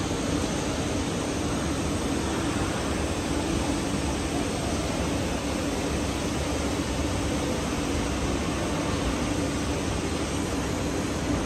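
A CNC machining center's swivelling saw-blade head cutting through a wood panel: a steady, even machine noise with a low hum under it.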